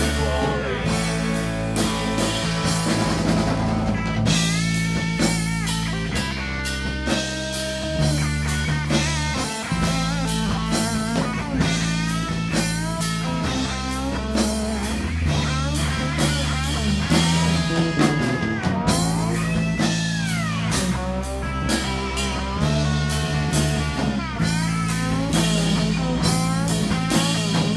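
Live rock band in an instrumental break: electric guitar playing a lead line of bent notes over bass guitar and a drum kit.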